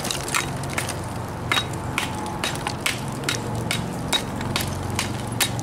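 Steel masonry trowel chipping and scraping old mortar off a concrete block: a run of sharp, irregular knocks and scrapes, about two to four a second, as the old mortar comes away easily.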